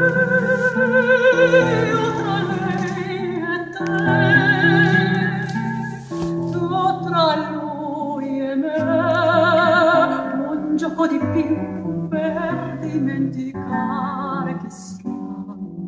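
A song with a singing voice in wide vibrato over a fuller accompaniment, played through Nobsound NS-2000 bookshelf speakers driven by a Nobsound MS-10D MKII valve amplifier.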